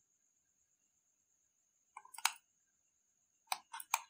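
Computer mouse and keyboard clicks: two about two seconds in, then a quick cluster of several near the end.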